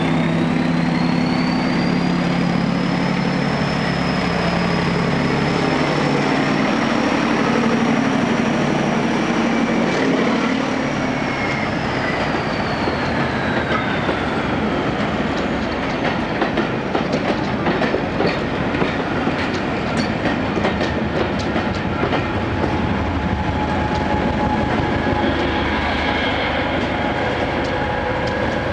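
Heritage train pulling out and passing close by: locomotive engine running with a high whine that rises, holds, then falls away, followed by a long run of quick clicks as the carriage wheels go over the rail joints.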